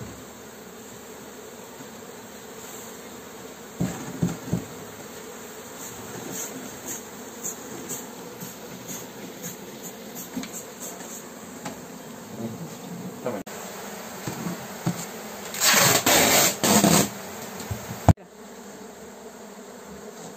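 A swarm of honeybees buzzing steadily as it is worked down into a cardboard box. A few knocks come about four seconds in, and a loud, rough noise lasting about a second and a half comes near the end.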